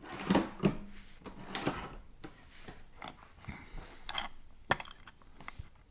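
Scattered light clicks and knocks of small metal parts being handled: a lock plug and a pair of fine steel tweezers, over a wooden tray. The sharpest tick comes about four and a half seconds in.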